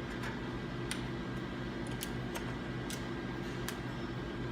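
About six light, sharp clicks of small metal parts being fitted together, as a pin is pushed through the front bracket and bushings of a drywall flat box handle. A steady low hum runs underneath.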